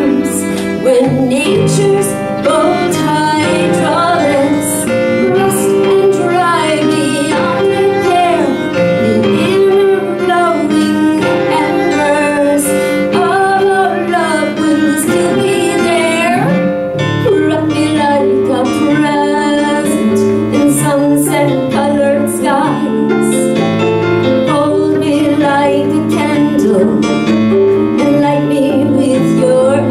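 Slow love song played live on electric bass, violin and an Ensoniq keyboard, with a woman singing the melody.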